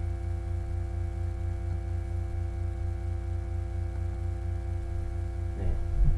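Steady electrical hum from a faulty microphone setup: a deep buzz with several steady higher tones over it, unchanging throughout.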